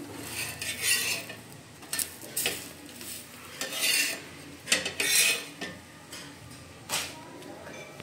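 Steel flat spatula scraping and clattering against a tawa while turning and lifting a lachha paratha: a series of short scrapes, about seven, the loudest near the middle.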